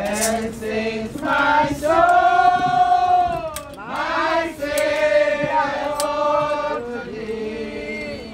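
A congregation singing a hymn together, many voices holding long, drawn-out notes.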